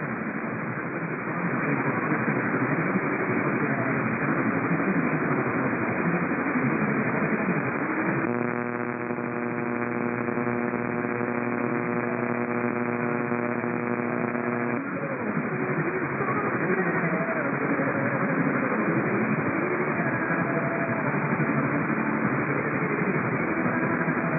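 Radio receiver hiss and static with faint wavering interference. About eight seconds in, a steady buzzing hum with many overtones takes over for about six seconds, then the static returns.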